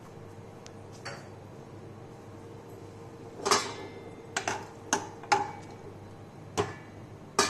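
A metal spoon stirring chunks of pumpkin and sweet potato in water in a saucepan, clinking sharply against the pan about seven times over the last four seconds; before that it is quiet.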